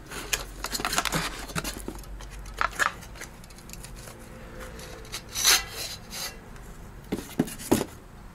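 Cardboard packaging rustling and flaps scraping as a Noctua NH-D15 chromax.black heatsink is lifted out of its box, with irregular clicks and knocks of the handling. The loudest is a scrape about five and a half seconds in, followed by a few sharp clicks near the end.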